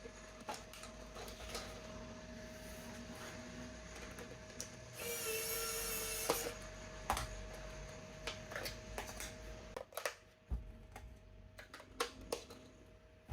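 Small clicks and knocks of hard plastic toy parts being handled, with a steady faint hum under them. About five seconds in, a small electric toy motor whirs for a second and a half, then stops.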